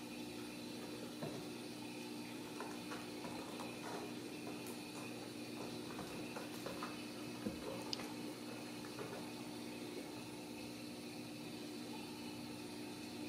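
A steady low hum with faint scattered taps and rustles of cats moving about on the floor and play tunnel, with a couple of sharper clicks about seven and a half and eight seconds in.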